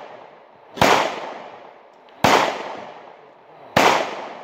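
Three shots from a 5.56 AR-15 rifle fired in slow semi-automatic succession, about a second and a half apart, each bang trailing off in a short echo.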